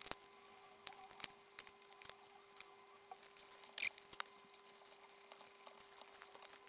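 Scattered light clicks and taps of wet metal control knobs being lifted out of soapy water and set down on a cloth, clinking against each other, with a louder clatter about four seconds in. A faint steady hum lies underneath.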